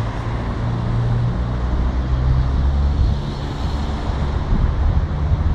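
Wind buffeting the microphone over road traffic noise, with a steady low engine hum that eases off about three seconds in.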